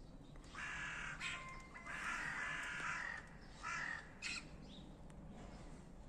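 Crows in a flock cawing, several harsh calls overlapping in a burst from about half a second to three seconds in, then a few shorter caws around four seconds in.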